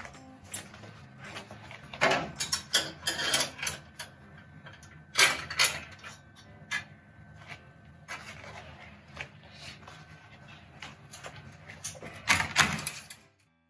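Irregular metallic clinks and clatters of a tiered wire rib rack and its lifting hooks knocking against the stainless-steel pot of a pressure smoker as the rack is lifted out, with a louder clatter near the end.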